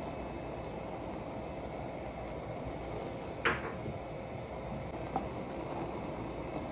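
A steady hiss with a single sharp clink of dishware about halfway through, followed by a softer click.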